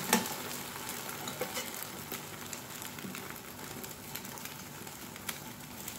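Egg-soaked bread frying in a nonstick pan, cooking its second side after the flip: a steady sizzle with scattered small pops and ticks.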